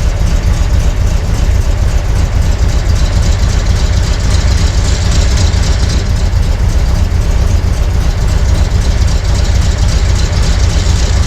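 1971 Corvette's V8 engine idling steadily, with a strong low rumble.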